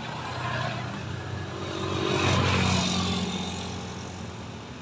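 Motor scooter engine labouring up a steep hill as the scooter passes close by, growing louder to a peak about halfway through and then fading as it climbs away.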